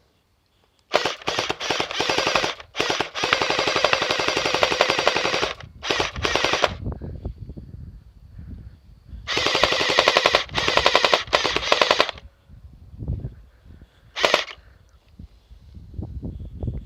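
SCAR 168 gel ball blaster firing on full auto: several rapid bursts of evenly spaced shots, the longest lasting two to three seconds, with a short last burst near the end.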